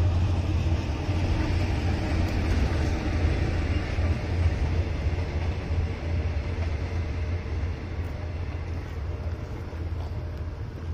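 Steady rumble of a passenger train's coaches rolling past on the rails, easing a little after several seconds as the train clears the crossing, with motor scooters running across the tracks.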